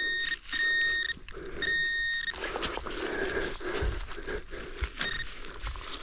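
Metal detector giving a high-pitched steady tone in short repeated bursts as the coil passes over a target: three in the first two seconds and a brief one near the end. It is a sketchy tone, reading in the 80s and 90s, where an old fence once stood.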